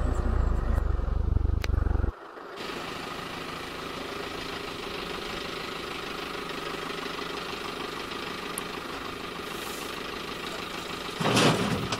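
New Holland tractor's diesel engine running steadily at moderate revs while its front-end loader holds a raised bucket of clay over a trailer. A heavy low rumble in the first two seconds cuts off abruptly. Near the end a louder rush starts as the bucket begins tipping the clay into the trailer.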